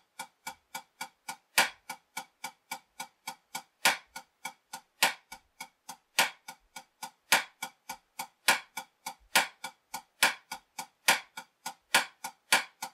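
A drumstick playing steady single strokes on a practice pad, about three and a half a second, soft taps broken by much louder accent strokes in a repeating 8-4-3-2 tap-accent pattern.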